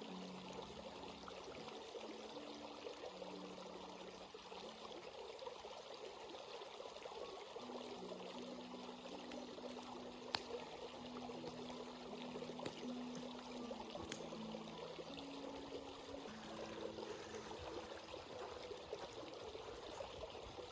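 Forest stream flowing over rocks and pebbles, a steady rush of water. Under it, faint low held notes shift in pitch, and a single sharp click comes about ten seconds in.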